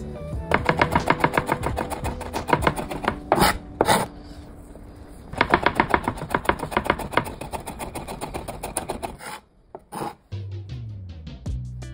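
Fast knife chopping on a cutting board, several strokes a second in two runs with a short pause between them, over background music.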